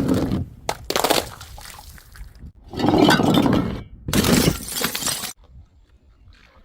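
Glass bottles shattering, several smashes and crashes of breaking glass in quick succession, the last one about four seconds in; the sound cuts off abruptly about five seconds in.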